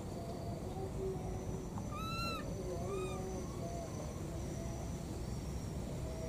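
Baby macaque giving two short arched coo calls, rising then falling in pitch, about two seconds in, the first louder than the second. These are an infant's contact calls for its missing mother. A steady low background noise runs under them.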